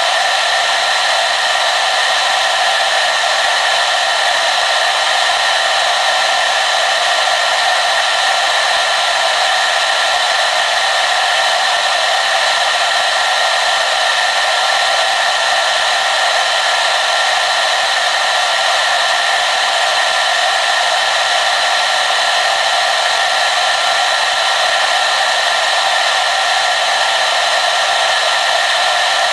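Hair dryer running steadily: a constant airflow rush with a faint steady whine in it, no changes in speed.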